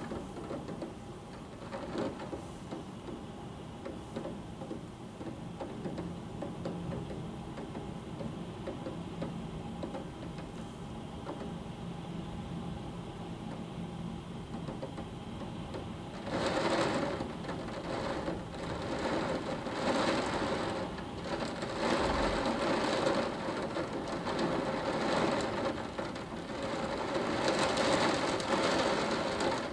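Heavy thunderstorm rain pouring down as a steady, even rush. About halfway through it grows louder, swelling and easing in waves.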